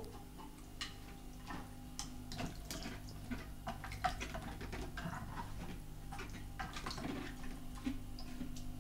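Cat pawing at the water of an electric pet drinking fountain: irregular small splashes, drips and taps scattered through, over a steady low hum from the fountain's pump.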